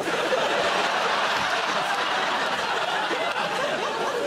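Studio audience laughing, a dense steady wash of many people's laughter that lasts the whole time.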